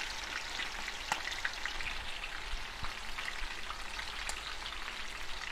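Funnel cake batter frying in hot oil in a cast iron skillet: a steady sizzle with scattered crackling pops as the batter is drizzled in.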